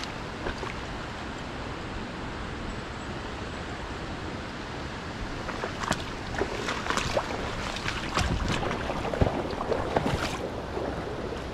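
Steady rush of a fast-flowing river current, with scattered light clicks and taps from about six seconds in.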